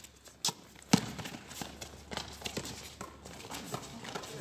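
A basketball bouncing twice on a hard court, about half a second apart, then lighter irregular footsteps and taps of players running.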